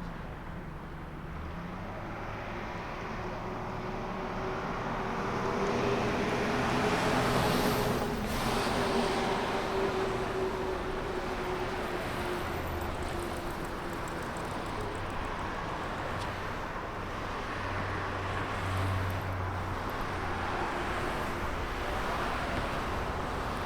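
Road traffic with cars passing by, a steady wash of tyre and engine noise. One vehicle passes closest and loudest about a third of the way in, its engine tone swelling and then fading back into the traffic.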